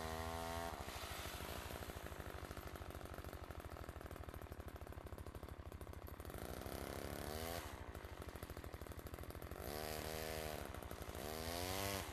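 A side-by-side UTV's engine running with a steady, rapid pulse while a dog howls over it in long, wavering calls: one at the start, then three more from about six seconds in.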